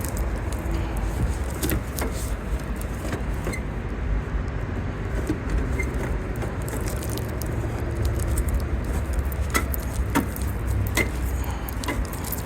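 Light plastic clicks and taps as a tail-light housing is slid and pressed into its pocket on the Jeep Gladiator's body, over a steady low rumble. The clicks are scattered, with several close together near the end.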